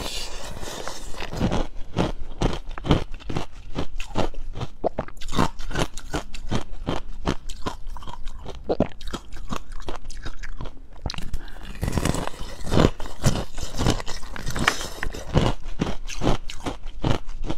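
Close-up biting and chewing of frozen pomegranate-seed ice: a dense, irregular run of sharp ice crunches between the teeth.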